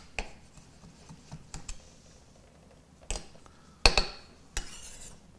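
Chef's knife chopping lox on a cutting board: scattered sharp taps of the blade against the board, the loudest about four seconds in.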